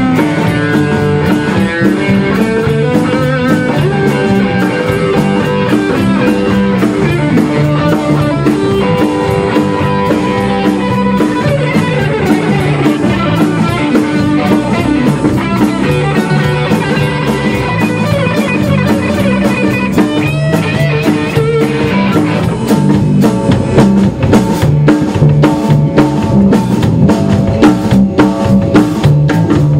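Rock band playing an instrumental passage on electric guitar, electric bass and drum kit. About three-quarters of the way through the band gets louder, with heavier cymbal and drum hits.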